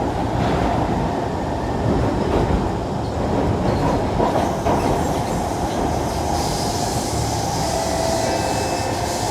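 Kawasaki C151 metro train running through a tunnel: a steady rumble of wheels on the rails. A hiss builds from about six seconds in, and near the end thin squealing tones come in as it slows on its friction brakes, this train having no regenerative braking on one car.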